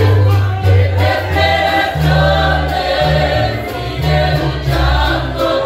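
Mixed youth choir singing a Christian hymn in Spanish, accompanied by strummed acoustic guitars over a bass line that changes note about once a second.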